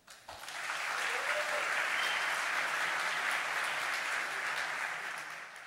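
Audience applauding a prize winner just announced: steady clapping that begins right away and fades out near the end.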